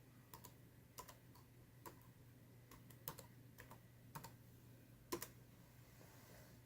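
Faint, irregular keystrokes on a computer keyboard, a dozen or so scattered taps, as a password is typed in at a login screen.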